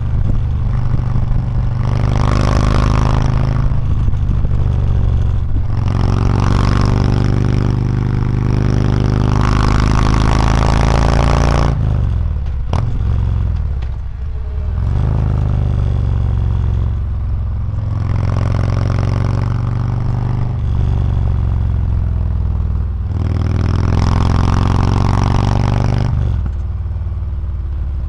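Harley-Davidson Street Glide Special's Milwaukee-Eight V-twin running through a Reinhart DBX45 exhaust at road speed. The exhaust note swells louder and eases back every few seconds, as the throttle is rolled on and off.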